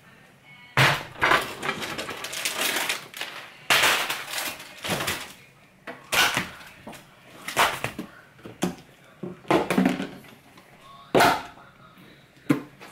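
Groceries being taken out of a refrigerator and set down: a plastic bag rustling, and packages and cartons knocking against the countertop in irregular bursts.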